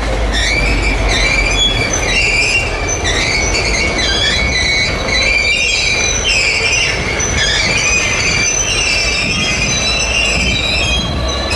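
Freight cars (tank cars and empty centerbeam flatcars) rolling past, their steel wheels squealing in several high, wavering tones over a steady low rumble of wheels on rail.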